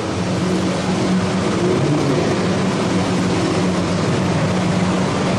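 Lamborghini Aventador's V12 engine running at low revs as the car creeps along, with a steady hiss of falling rain.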